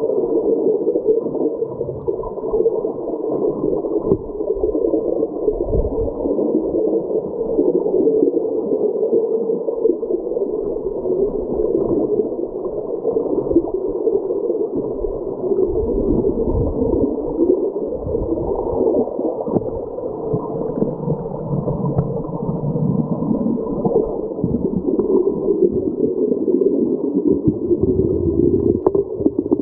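Creek current flowing over rocks, heard from underwater through a submerged camera: a steady, muffled rushing gurgle with no high end, and deeper surges now and then.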